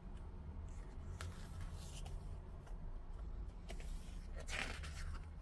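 Pages of a large, heavy photobook being handled and turned: glossy paper sliding and rustling in a few soft swishes, the loudest about four and a half seconds in, over a steady low hum.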